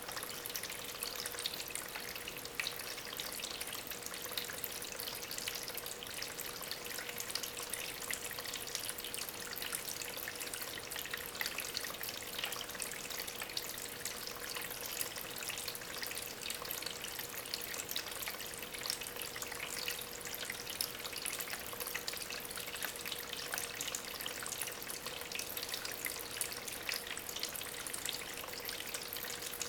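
Small homemade tabletop waterfall, water from an aquarium pump trickling and splashing steadily over natural stones, with many tiny drips and a faint steady hum underneath.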